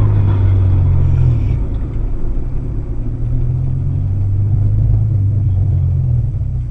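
Steady low engine-and-road rumble of a car, heard from inside the cabin through a dash cam's microphone.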